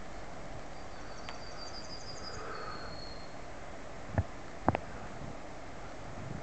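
A small songbird sings a quick run of high repeated notes ending in a short trill, over a steady rural background hiss. Two sharp thumps come close together about four seconds in.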